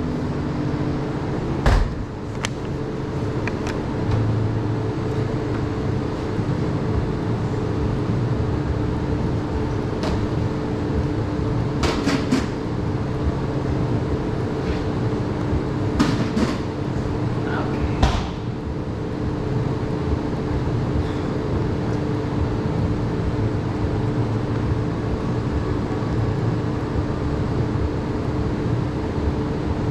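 Steady machine hum of sandwich-shop equipment, with a low rumble under two held tones. A few sharp knocks and clatters of work at the counter stand out over it.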